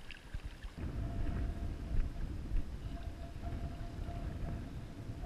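Wind buffeting the microphone over the flowing river, a steady low rumble that grows louder about a second in.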